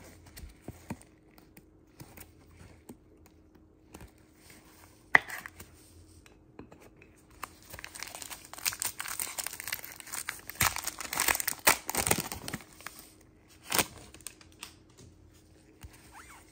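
Plastic trading-card pack wrapper being torn open and crinkled, a dense crackling for several seconds in the middle. A few sharp clicks of cards being handled come before and after it.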